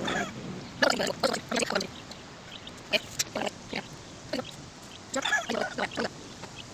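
A person eating a soft green rolled pancake (kue dadar) close to the microphone: a few short clusters of chewing and mouth noises, about a second in, around three seconds, and again between five and six seconds.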